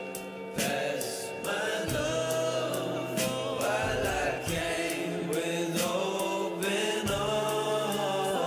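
Background song: a sung vocal line over a steady beat with a held bass.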